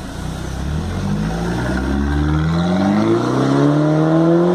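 Mercedes-Benz SLK engine through an aftermarket Hurricane Evolution exhaust, revving up: from about half a second in, the exhaust note rises steadily in pitch and grows louder.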